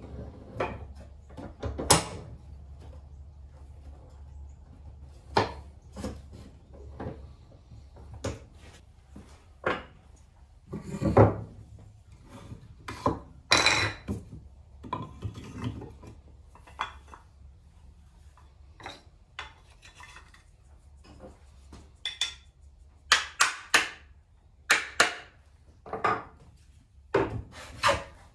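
Irregular wooden knocks and short rubbing strokes of wood on wood as an antique wooden jack plane and a board are worked at a bench. Some strokes are longer, scraping ones; the rest are sharp single knocks.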